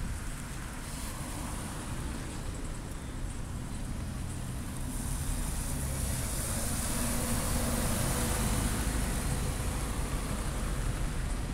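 Street traffic: cars driving past, then a city bus passing close by about halfway through, its engine and tyre noise swelling and staying loud toward the end.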